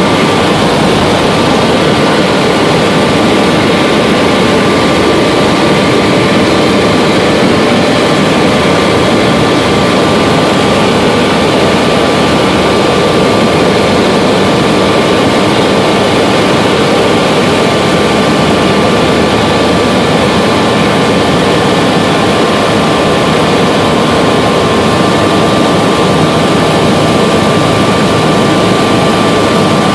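Helicopter in flight heard from inside the cabin: loud, steady engine and rotor noise with a thin steady whine running through it.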